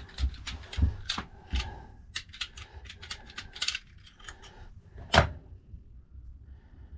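Metal clicks and clatter of a key being worked in a 7-lever safe lock, with a single louder clack about five seconds in.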